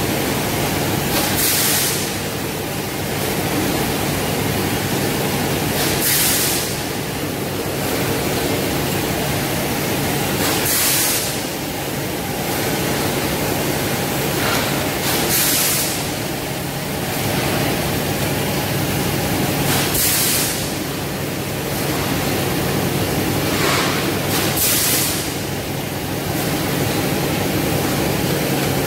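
Steady hum of factory production-line machinery, with a short burst of hiss repeating about every four and a half seconds.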